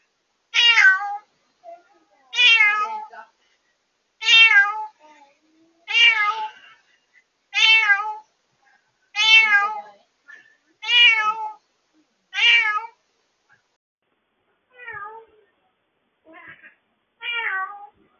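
A recently rescued former stray cat meowing loudly and over and over, about one cry every one and a half to two seconds. After eight loud meows the last three are fainter. This is the night crying of a newly rescued cat in its first days of getting used to indoor life, recorded through a pet camera's microphone at a level that distorts.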